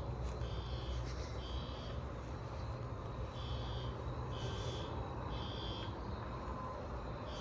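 Fire alarm system sounding the temporal-three evacuation signal: three short high beeps about a second apart, then a pause, repeating, over a steady low rumble.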